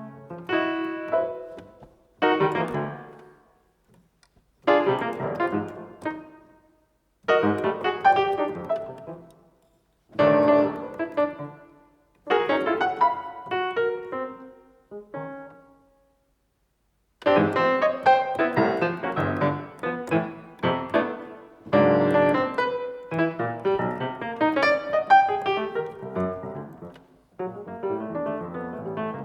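Solo piano playing in short phrases of clustered notes broken by brief silences, then a longer pause about sixteen seconds in, after which the playing grows denser and more continuous.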